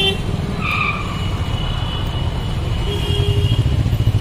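Low, steady rumble of motor vehicle engines in street traffic, with one engine's rapid, even pulsing beat growing louder from about three seconds in.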